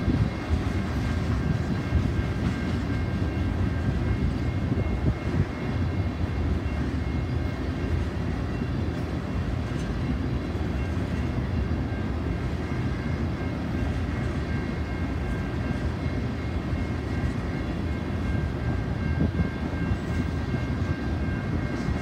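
Tank cars of a freight oil train rolling past at steady speed: a continuous rumble of steel wheels on rail, with faint steady high tones over it.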